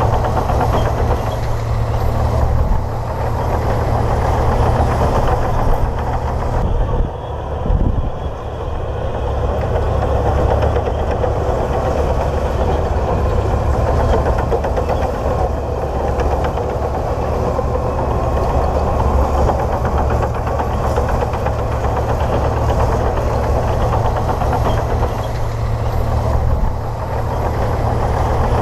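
Komatsu D58P bulldozer's diesel engine running steadily and loudly as the dozer works, with a short dip about seven seconds in.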